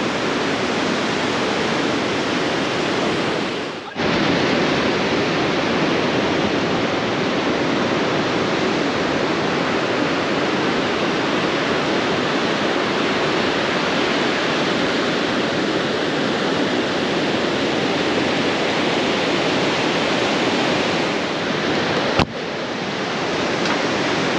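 Steady rush of ocean surf breaking and washing up a sandy beach. The sound dips briefly about four seconds in and breaks with a sharp click near the end before the surf noise carries on.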